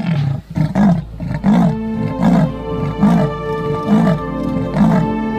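A big cat's growl repeats at a regular pace, about one every 0.7 seconds, over background music with steady held tones.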